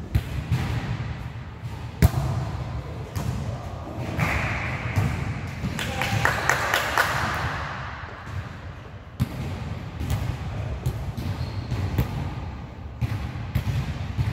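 Volleyball rally in a gym: a string of sharp hits and thuds of the ball, the loudest about two seconds in, over the steady noise of the hall and a louder stretch of court noise in the middle.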